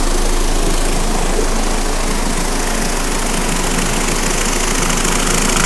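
Giant GB3 vibratory tumbler running: a steady low motor hum under the dense, even rattle and hiss of ceramic media churning in the bowl. The separator is engaged, so the media and parts ride up over the separation grate.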